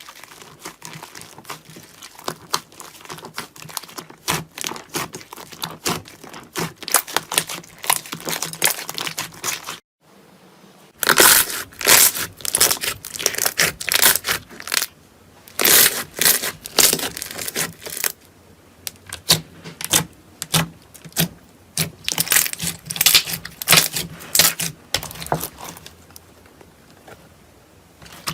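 Slime being squeezed and pressed by hand, giving dense runs of crackling, popping clicks. After a short break about ten seconds in, the clicking comes back louder, in uneven clusters.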